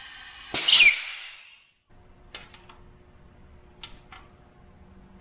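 Compressed air from a leak-down tester hissing steadily out of an EJ25 cylinder, escaping past the piston rings at about a 20% loss. About half a second in, a loud blast of air lets go and dies away within a second, as the tester's pressure is released. A few light clicks of metal fittings follow.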